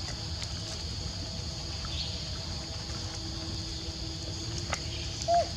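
Outdoor forest ambience: a steady high drone of insects over a low rumble, with a few faint clicks and one short squeak near the end.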